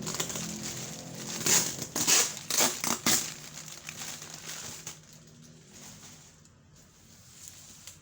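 Packaging crinkling as it is handled, with a quick run of sharp crackles in the first few seconds that settle into quieter rustling.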